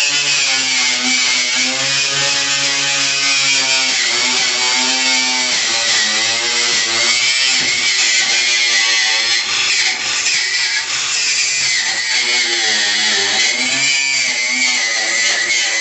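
Electric power sander running without a break on rusted sheet metal, a loud steady grinding hiss with the motor's pitch wavering up and down as it is pressed against the metal.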